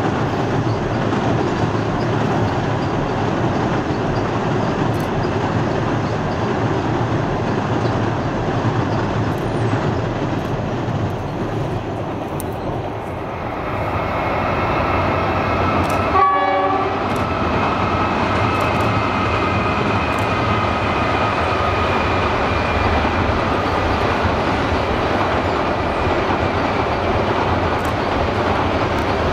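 A long passenger train rolling across a multi-span viaduct: a steady rumble and rattle of carriage wheels on the bridge. A faint steady high tone joins in past the middle, and there is a brief drop-out with a click about halfway through.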